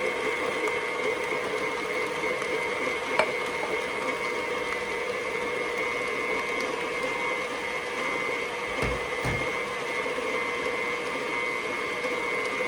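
Food processor motor running steadily with a constant whine, creaming butter as sugar is added. A single sharp click about three seconds in.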